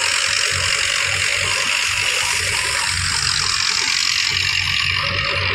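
Wheat thresher running under power from a Belarus 510 tractor's diesel engine: a steady loud rush and hiss of threshing straw and chaff over a low, even engine throb.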